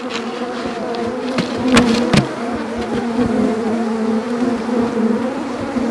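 A large colony of honeybees buzzing around an open hive during an inspection, a dense steady hum. Two sharp clicks about two seconds in.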